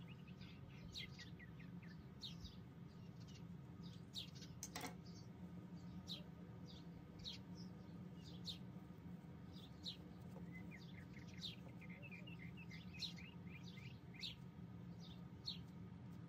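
Faint bird chirping: many short, quick downward chirps scattered throughout, with a faster run of them about two-thirds of the way in, over a low steady hum.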